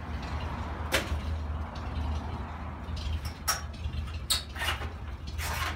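1933 Ford side-valve (flathead) V8 idling quietly with a steady low hum, while a truck door shuts with a sharp knock about a second in. Several short metal clanks and a brief rattle follow as the hood is handled.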